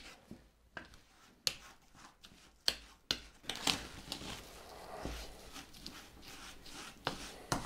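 Wooden spoon scraping and knocking against a ceramic bowl while creaming butter and gritty demerara sugar: a soft rubbing broken by a few sharp clicks.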